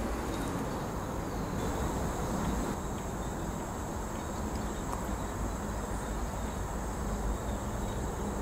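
Steady high-pitched chirring of insects over a low, even background rumble, the insect sound growing stronger about a second and a half in.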